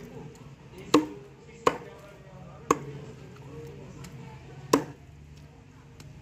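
Steel meat cleaver chopping raw chicken on a wooden log: four sharp chops at uneven intervals, the blade striking through into the wood.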